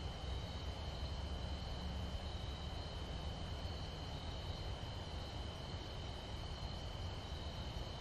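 Steady insect chorus, an unbroken high-pitched trill on two tones, over a low steady rumble.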